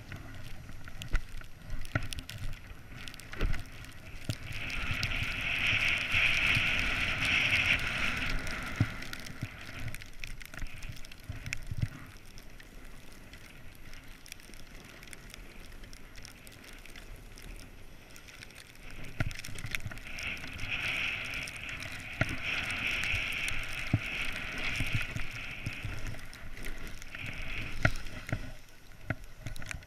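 A snowboard sliding and scraping over packed snow on a downhill run, louder twice for several seconds at a time as the edge bites in, with wind rumbling on the camera's microphone and a few sharp knocks.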